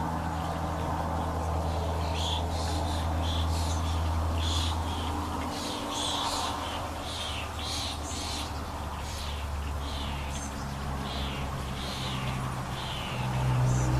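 Birds singing many short, repeated notes over the steady drone of highway traffic; a vehicle grows louder near the end.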